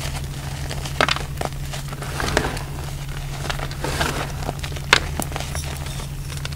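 Gym chalk being crushed and squeezed in the hands into loose powder: irregular crunching and crumbling with sharp cracks, the loudest about a second in and near five seconds.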